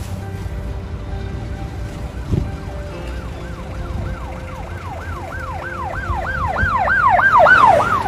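An electronic siren in fast rising and falling cycles, about three a second, growing louder and peaking near the end, over a low traffic rumble. A single thump comes about two seconds in.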